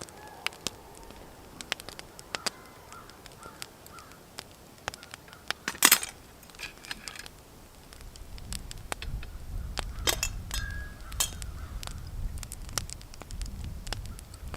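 Campfire crackling, with scattered sharp pops and one louder burst about six seconds in. A low rumble joins from about eight seconds in.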